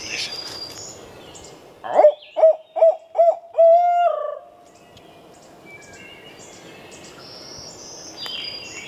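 Barred-owl hoot imitated loudly and close by a turkey hunter: four short hoots and a longer drawn-out last note, the 'who cooks for you' rhythm. It is the owl locator call used at dawn to make a gobbler shock-gobble and give away where he is.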